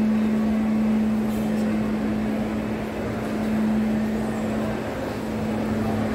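Shopping-mall ambience: a steady low hum under a general background rumble of the busy concourse.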